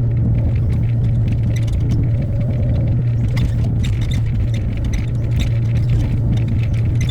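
Hyundai HX60A excavator's diesel engine running steadily at working speed, with scattered clicks and scrapes of the bucket and attachment working debris.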